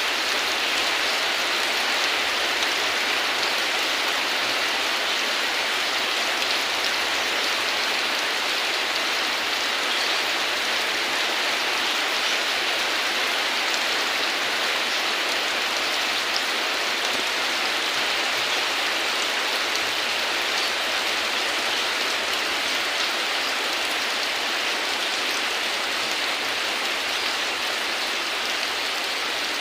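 Heavy rain falling steadily, an even hiss with scattered patter of individual drops.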